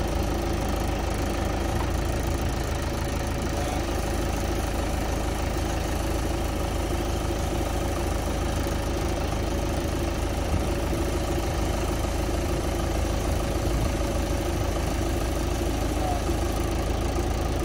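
John Deere 5525 tractor's diesel engine idling steadily.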